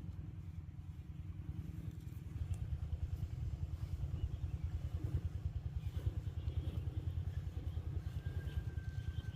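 A small engine running with a fast low throb, growing louder about two seconds in.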